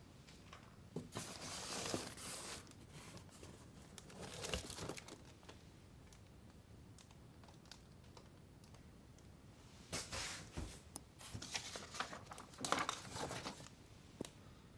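Packaging being handled and torn open during an unboxing: irregular bursts of crinkling and tearing, in a cluster near the start, a short one about four seconds in, and a longer run in the second half.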